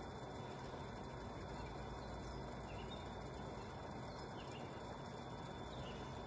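Quiet outdoor ambience: a steady low hiss and hum with a few faint, short, high chirps scattered through it.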